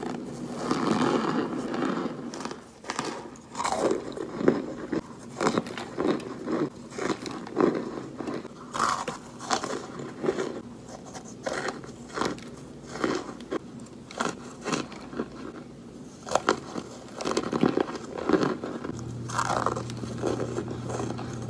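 Biting and chewing dry, powdery white chunks: a run of short crunches and crumbling bites, roughly one every second.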